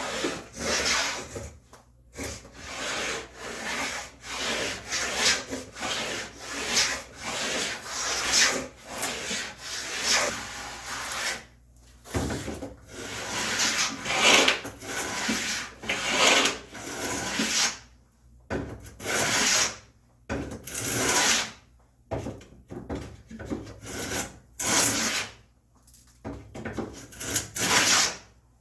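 Combination plow plane cutting a rabbet along the edge of a board: repeated strokes, roughly one a second, each a short scraping hiss of the blade taking a shaving. There are a few brief pauses between runs of strokes.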